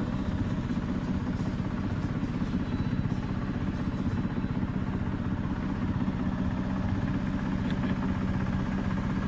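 A sailboat's inboard auxiliary engine running at a steady low speed, a constant low hum with no change in pitch, as the boat motors with its sails furled.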